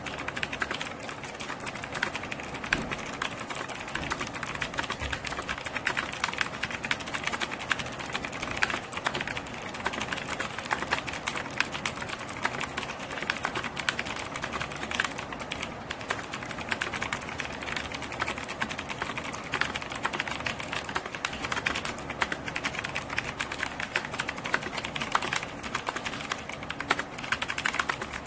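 Mechanical keyboard with clicky blue switches being typed on quickly and continuously, a dense run of sharp key clicks without a pause.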